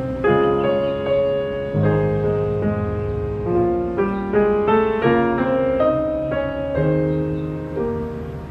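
Piano music: a melody moving note by note over held chords, each note struck and then fading.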